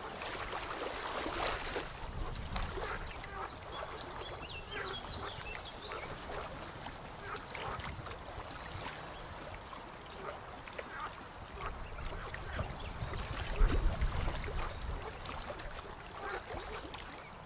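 A chorus of frogs croaking: many short calls overlapping and repeating irregularly, over a low rumble that swells briefly about fourteen seconds in.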